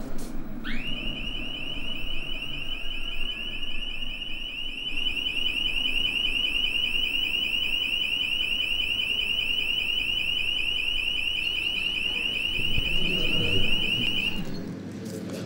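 Shop anti-theft security gate alarm: a single high electronic tone, pulsing rapidly, that sweeps up into place at the start, sounds for about fourteen seconds and cuts off shortly before the end.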